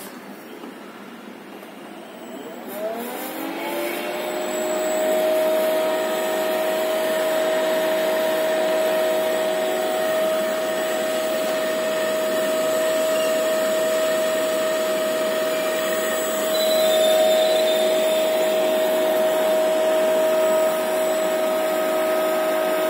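Electric induction motor fed by a Siemens Micromaster 420 variable-frequency drive, ramping up about three seconds in with a whine that rises in pitch and then holds steady as the motor runs at speed.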